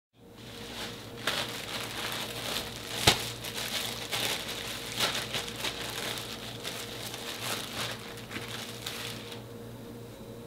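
Plastic bread bag crinkling and rustling as it is handled, with a sharp click about three seconds in, over a faint steady hum. The rustling thins out near the end.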